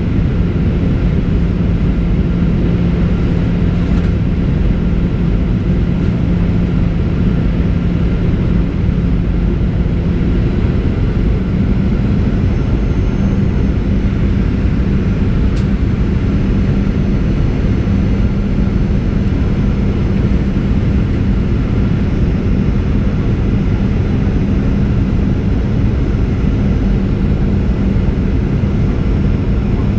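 Cabin noise inside a Boeing 737-800 descending on approach: the steady rush of airflow and hum of its CFM56-7B turbofan engines, with a low hum that steps up slightly in pitch about eleven seconds in.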